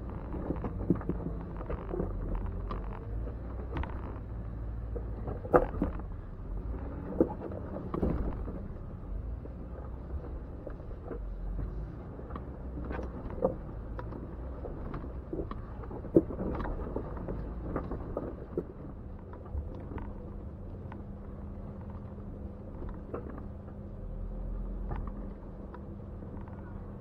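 Jeep Wrangler engine running at crawling speed over a rocky trail, with scattered sharp knocks and clunks from the tyres and chassis on the rocks. A steady low hum sets in past the middle.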